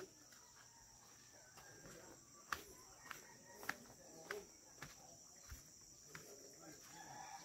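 Footsteps on a concrete and stone path: sharp clicks at an even walking pace, starting about two and a half seconds in. Under them, a faint steady high-pitched insect drone.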